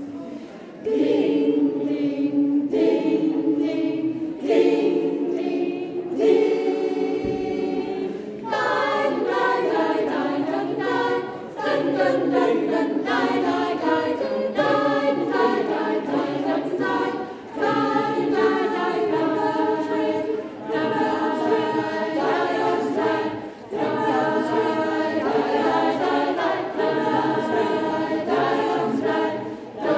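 Mixed-voice choir singing a cappella. The singing starts about a second in and the harmony grows fuller about eight seconds in, with short breaks between phrases.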